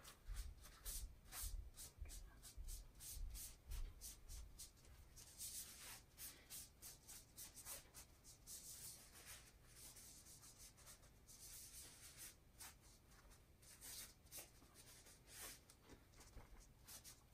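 Faint, repeated dabbing and rubbing of a crumpled wad over a sheet of ink-wet Tyvek: many quick, soft scratchy strokes, with a few dull thuds against the table in the first few seconds.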